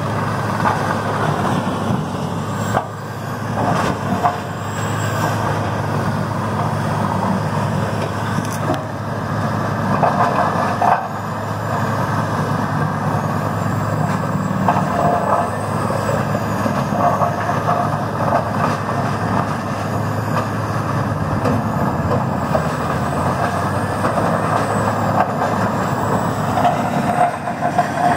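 Morbark 4600XL horizontal grinder with its Caterpillar C27 V12 diesel running steadily under load while it grinds wood. A low engine drone sits under a dense crunching, rumbling grind, with a few short knocks as pieces pass through.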